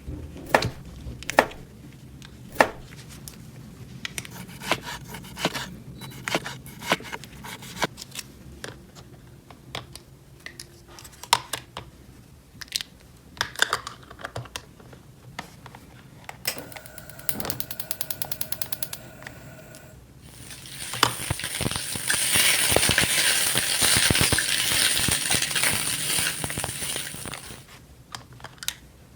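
Small hard pieces of a toy kitchen set clicking, tapping and clattering. Then comes a short rapid buzz, and then a loud steady hiss for about seven seconds.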